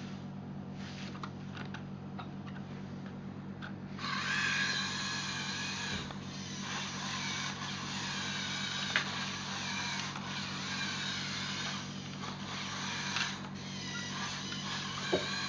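Electric motors and plastic gearing of a LEGO Technic remote-control truck whining, starting about four seconds in and wavering in pitch, with a few sharp clicks.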